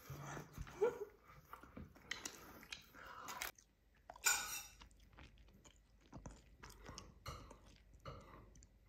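Someone chewing and biting into bread close to the microphone, with scattered short crunches; the loudest bite comes a little over four seconds in.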